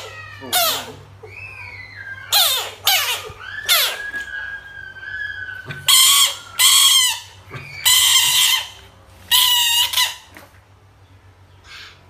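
A series of about eight loud, short animal squeals, each falling in pitch, with a thin high whine drawn out for over a second about four seconds in.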